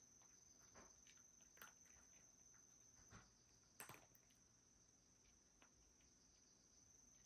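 Faint, irregular clicks and crunches of a cat chewing its food at a bowl, the loudest about four seconds in.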